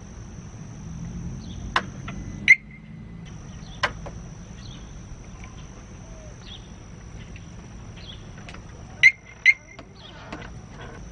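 Harley-Davidson Smart Siren 2 security siren chirping as it is tested after installation: one short chirp with a brief held tone a few seconds in, then two quick chirps near the end, with a few light clicks between.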